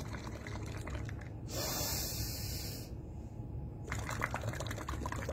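Air blown through a drinking straw into a glass of water, bubbling for about a second and a half. Then comes a hissing breath in, and from about four seconds in the bubbling starts again. This is the bubble-blowing breathing exercise.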